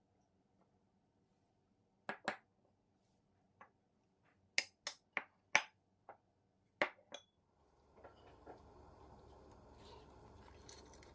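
Sharp clinks and knocks of kitchenware being handled, about ten in a few seconds, one ringing briefly. A steady watery hiss sets in about two-thirds of the way through.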